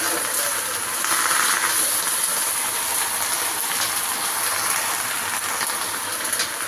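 Bok choy sizzling in hot oil in a wok as it is stir-fried: a steady hiss, with light clicks of a metal spatula against the pan.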